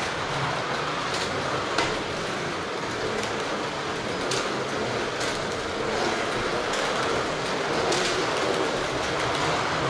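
Carrera Digital 1/32 slot cars running laps on a plastic track: a steady whirring of motors and tyres, with irregular sharp clicks.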